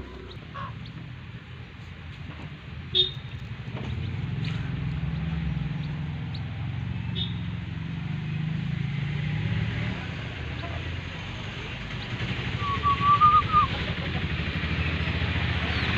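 A motor vehicle's engine running steadily, a low rumble that gets louder about four seconds in. Over it, chicks give a few short high peeps, and a short warbling call comes near the end.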